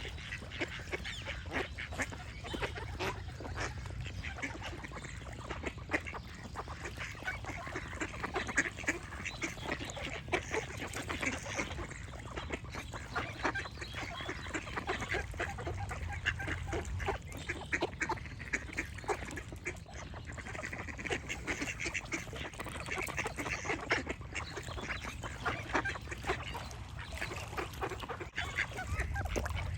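A flock of ducks quacking continuously, many short overlapping calls, with small birds chirping among them.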